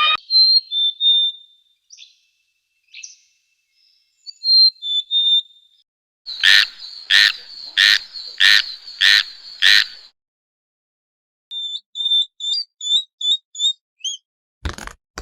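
A sequence of animal calls: high whistled notes at first, then six loud calls about two-thirds of a second apart, then a quick run of high chirps. A dense rattling noise starts near the end.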